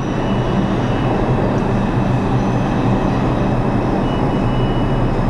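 New York City subway train rumbling steadily at the platform, with faint thin high tones over it.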